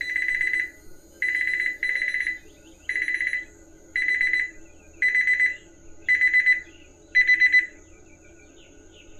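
Electronic alarm of a digital barbecue temperature controller beeping: eight high, single-pitch beeps of about half a second each, roughly one a second, the last few pulsing quickly. It signals a pit temperature running too high, about 459 degrees against a wanted maximum of 425.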